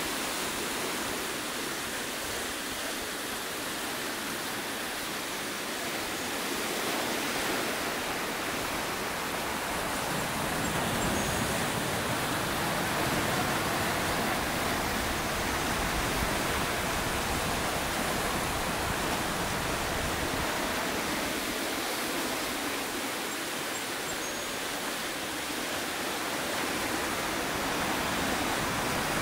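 Ocean surf breaking and washing over a rocky shoreline, a steady rushing that swells louder for about ten seconds midway and again near the end.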